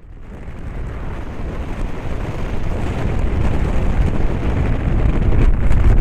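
Strong wind buffeting the microphone high on a tower, a low rumbling rush that builds steadily louder.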